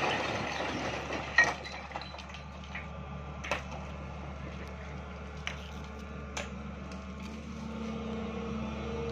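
Sany crawler excavator's diesel engine running steadily under hydraulic load while its bucket works broken rock, with sharp clacks of stone striking stone and steel, four of them, the loudest about a second and a half in. The engine note swells slightly near the end.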